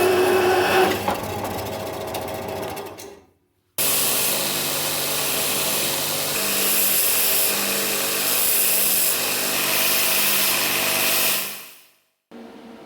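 A handheld power tool running steadily in two stretches cut together, the second ending in a fade about three-quarters of a second before a quieter, different piece near the end.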